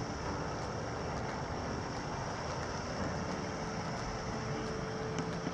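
Wind buffeting the microphone: a steady, rumbling noise heaviest in the low end, with a faint steady tone from about halfway through until near the end.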